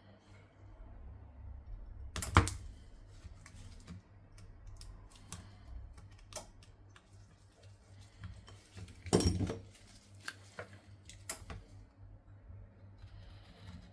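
Scattered small clicks and taps of hand tools and phone parts being handled during an iPhone screen replacement, with two louder knocks, one about two seconds in and one about nine seconds in.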